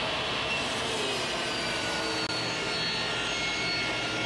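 SawStop table saw running steadily while ripping a 3/4-inch plywood board along the fence.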